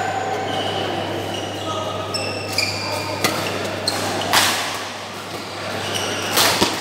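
Badminton rackets striking a shuttlecock during a doubles rally: three sharp cracks, the loudest about four and a half seconds in and another near the end, with short high squeaks of shoes on the court mat between them.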